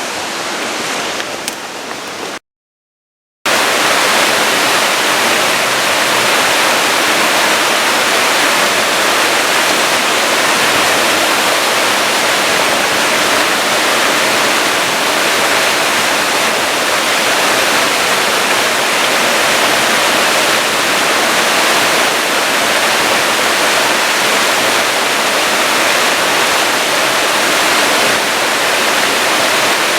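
Waterfall rushing steadily. The sound cuts out completely for about a second near the start, then comes back louder.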